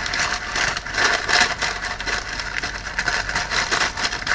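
Continuous crackling and crunching as broken Biscoff biscuit pieces are pressed down by hand into the soft fudge.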